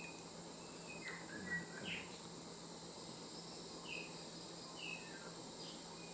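Small birds chirping in short, scattered calls over a steady faint high hiss.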